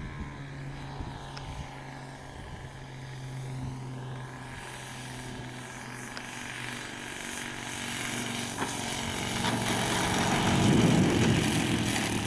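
Four-stroke engine and propeller of a radio-controlled model Tucano on landing approach. The steady drone grows louder as the plane comes in low and close, with a rougher rush loudest about ten to eleven seconds in as it reaches the grass by the microphone.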